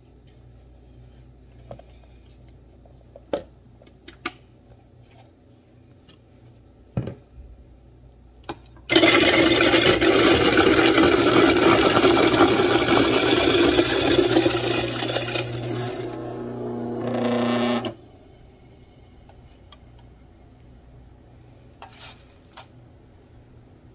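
Electric ice shaver running as ice is pressed down onto its blade: after a few scattered knocks, a loud grinding rasp starts about nine seconds in and lasts about seven seconds. It then drops to the lighter whir of the motor with little ice left, and stops abruptly.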